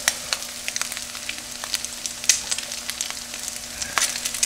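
Bacon, eggs and hash browns sizzling in grease on a Farberware electric nonstick griddle, with a steady crackle broken by frequent sharp pops and clicks.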